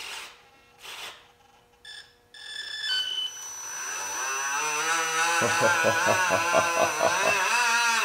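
Electric motor of a model boat's outboard spinning its propeller in air under radio throttle. A short run of electronic beeps at stepped pitches comes first, then a whine rises and wavers up and down with the throttle for several seconds, stopping at the end.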